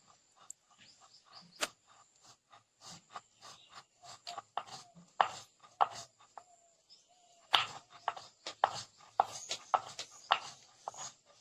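Irregular sharp knocks and taps of food being cut and worked by hand.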